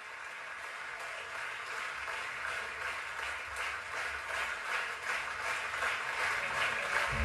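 Audience applause fading in and growing steadily louder, with a band's music coming in right at the end.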